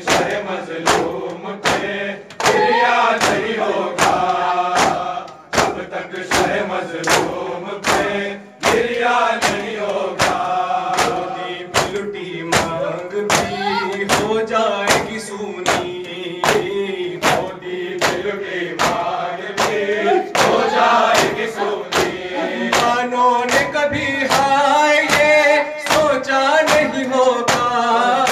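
A group of men chanting a noha, a Shia lament, in unison behind a lead reciter. It is kept in time by a steady beat of chest-beating (matam) slaps, roughly three every two seconds.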